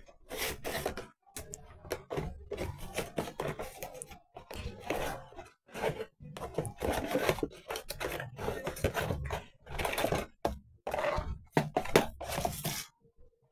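Cardboard toy box being opened and handled: irregular rustles and knocks as its flaps are pulled open and a plastic toy house is lifted out.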